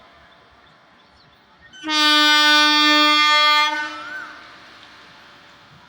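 Indian Railways locomotive horn sounding one steady blast of about two seconds, starting near two seconds in, then fading out over low station background noise.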